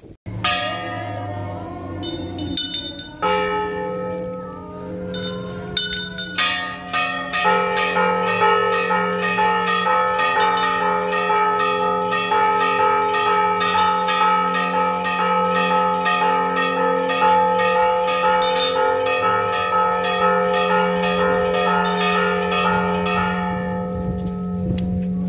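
Church bells ringing: several bells of different pitches, a few separate strikes at first, then from about seven seconds in a fast, steady peal of repeated strikes that thins out near the end.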